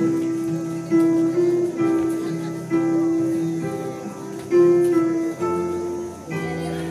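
Music led by plucked guitar: a slow melody of held notes over a lower bass line.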